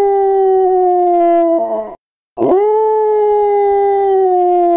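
Recorded dog howling played from a dog-sounds phone app: one long howl that ends about two seconds in, a short pause, then a second long howl that rises at its start and slides slowly down in pitch.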